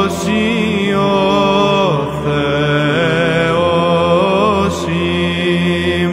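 Solo male voice chanting a Greek Orthodox Byzantine hymn, drawing one long melismatic vowel line that falls about two seconds in, rises again and winds through quick ornamental turns. A steady low drone is held beneath it.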